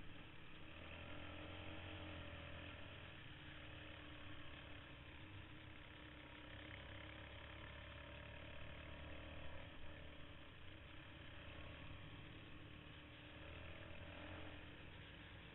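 Quad (ATV) engine running while being ridden, faint and steady over a low rumble, its pitch rising and falling a little with the throttle.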